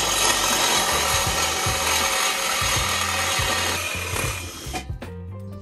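Handheld cordless saw cutting through a steel exhaust pipe to take out the old muffler and resonator: a loud, steady rasping buzz that stops about five seconds in.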